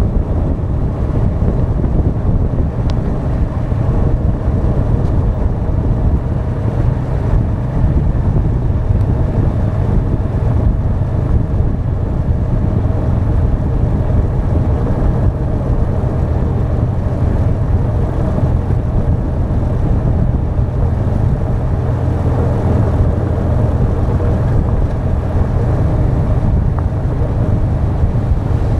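A Honda Deauville 650 running steadily on the move, its V-twin engine under heavy wind rush on a front-mounted action camera's microphone.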